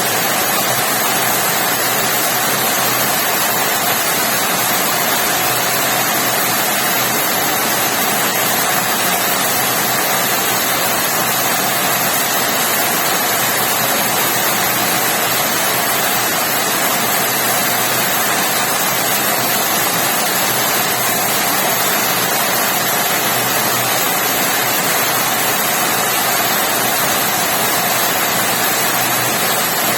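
Steady rain pouring down, a loud, even hiss that does not let up.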